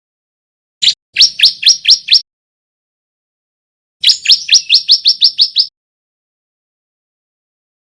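Male bar-winged prinia (ciblek) singing in two bursts of rapid, sharp repeated notes, about five a second: a short burst about a second in and a longer one about four seconds in.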